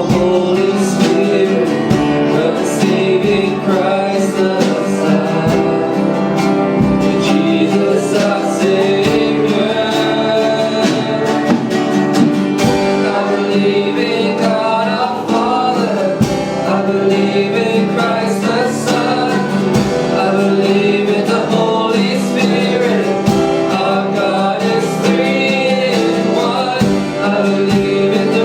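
Live church worship music led by guitar, playing continuously.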